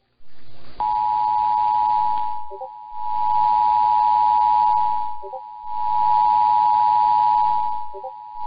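Emergency Alert System two-tone attention signal, two steady tones just under 1 kHz sounding together, received over a radio with a hiss of static behind it. It starts about a second in and holds steady, marking the start of a Required Monthly Test alert.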